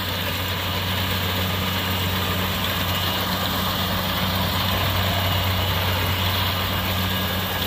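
Kubota DC70 rice combine harvester running steadily under load while cutting and threshing, its diesel engine humming over a dense clatter of the cutting and threshing machinery. The engine has been tuned up ('binh') for extra speed.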